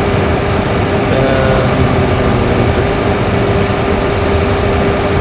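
Steady hum of cockpit fans and equipment in a Boeing 737 Classic flight deck on ground power, a constant tone held over an even rush of air.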